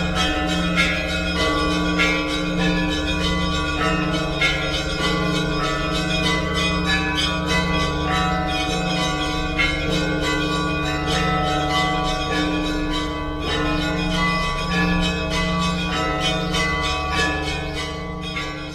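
Orthodox church bells ringing together: small bells struck rapidly over a deep, pulsing bass bell. The ringing fades away near the end.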